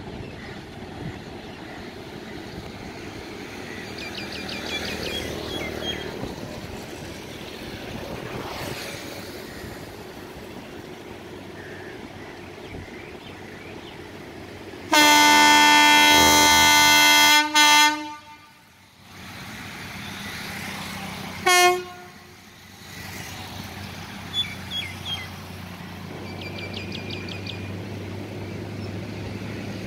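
WAG9 electric locomotive's horn sounding for departure: one loud long blast of about two and a half seconds, two quick short toots right after, and one more short toot a few seconds later, over a steady background hum.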